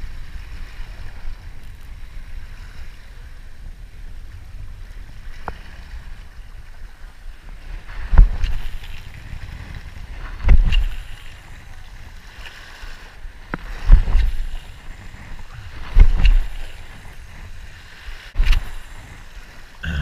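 Sea washing against a rock ledge with wind on the microphone, and five heavy low thumps spaced about two seconds apart in the second half.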